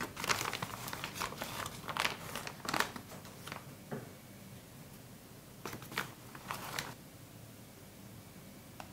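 Paper flour bag rustling and crinkling as flour is scooped out of it with a spoon. One run of rustles lasts about three seconds, and a shorter run comes about six seconds in.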